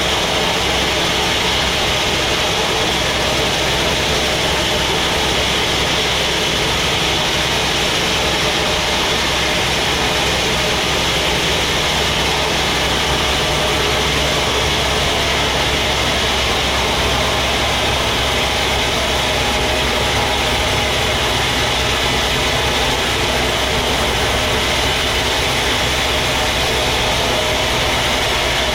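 Sawmill machinery running steadily, a continuous mechanical hum and hiss that does not change.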